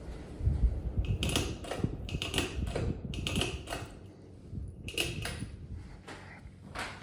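A run of irregular sharp clicks and knocks, about a dozen over six seconds and loudest in the first half, over a low rumble and a faint steady hum.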